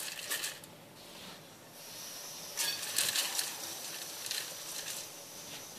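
Moistened couscous grains scooped by gloved hands and dropped into the oiled metal steamer basket of a couscoussier: soft rustling and pattering in a few short clusters, near the start and again around three seconds in.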